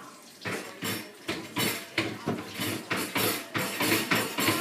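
Kitchen cabinet door being yanked repeatedly against a latch that lets it open only a crack, knocking and rattling about three times a second. The knocks grow louder.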